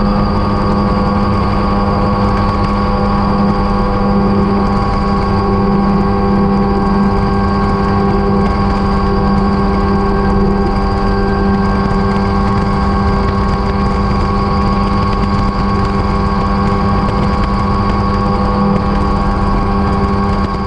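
Mosquito XE285 ultralight helicopter's engine and rotor running steadily at climb power, heard from the cockpit as a loud, even drone with a strong low hum.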